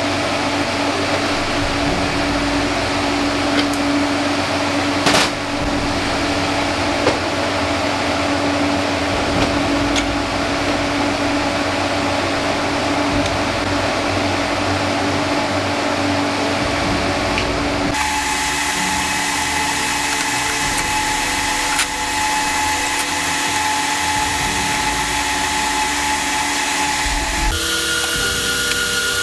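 Steady workshop tool noise, a continuous whirring with a steady hum, while two halves of a rocker-arm bolt are welded into a stud. The sound changes abruptly about 18 seconds in and again near the end.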